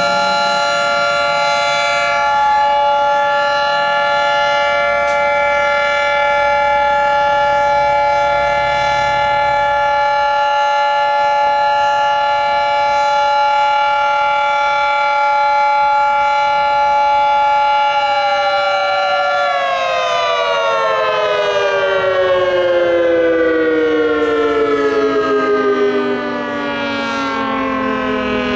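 Federal Signal 2T22 dual-tone outdoor warning siren sounding its steady alert as a held, loud two-tone chord. About 18 seconds in, it starts winding down, the chord sliding steadily lower in pitch as the rotor slows.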